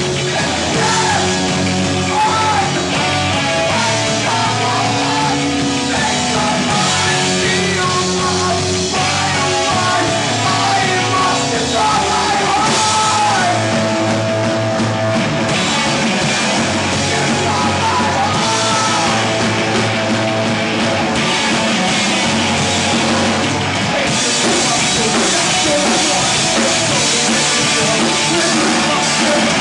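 A rock band playing live, with electric guitar and drum kit, loud and continuous.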